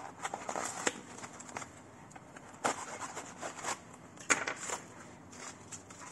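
Knife cutting through packing tape and cardboard on a small parcel, then the cardboard flaps torn and pulled back: irregular crackling and scraping with two sharp snaps, the louder one a little past the middle.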